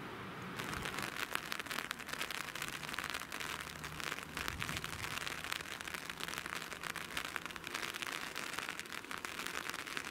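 Rain falling close to the microphone, a dense, steady crackle of drops that starts suddenly about half a second in.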